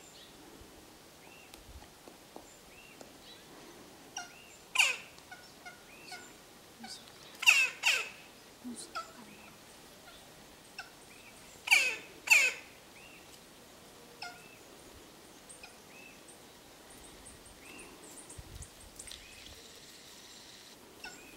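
Magellanic woodpecker giving loud, harsh calls that drop in pitch: one about five seconds in, then two pairs a few seconds apart, with fainter short calls in between.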